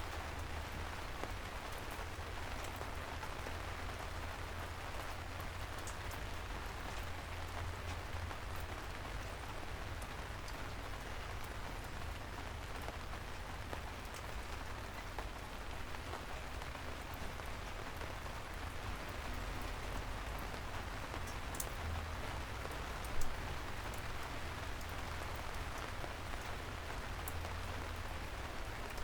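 Steady soft rain falling on city streets, with scattered individual drops ticking close by and one louder tap about three-quarters of the way through. A low steady rumble runs underneath.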